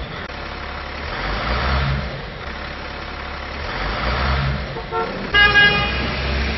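Truck engine running with a pulsing low rumble, then a short toot about five seconds in and a louder horn blast lasting about half a second.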